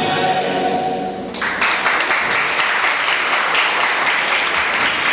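A choir with string accompaniment holds a final chord and cuts off about a second in. Applause with many individual claps follows.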